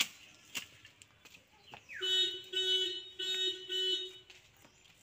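A hand hoe strikes the hard garden soil a few times, then a loud electronic tone with a short falling chirp sounds four beeps in a row, each about half a second long.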